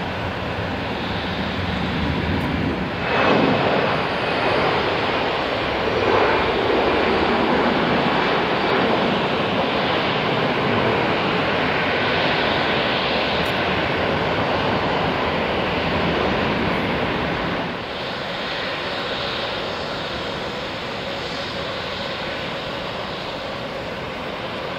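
Jet airliner engines at takeoff power, a loud, steady roar that swells sharply about three seconds in. About eighteen seconds in it drops to a quieter, steady jet hum.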